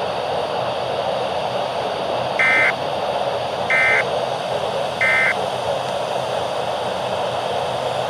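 Three short electronic alert beeps, each about a third of a second and evenly spaced about 1.3 seconds apart, over a steady hiss of radio static.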